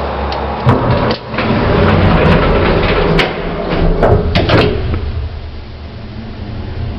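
Old express lift's sliding doors clattering and rattling, with a series of sharp clunks, over the steady low hum of the lift, which quietens after about five seconds.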